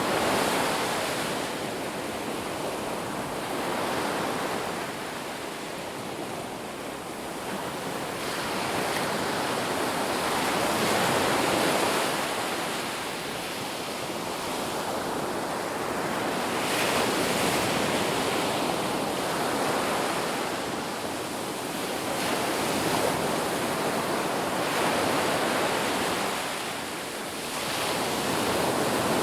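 Ocean surf washing onto a beach: a continuous rushing wash of water that swells and falls away every few seconds as waves break and recede.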